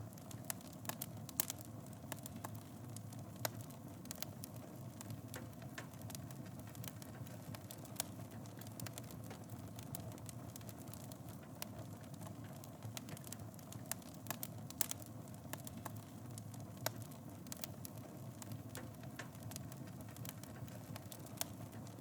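Fire burning in a fireplace: a steady low rumble of flames with frequent, irregular sharp crackles and pops, a few of them louder.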